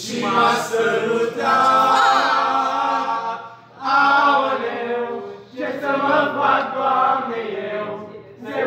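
Several voices singing together without instruments, in held phrases broken by short breaths.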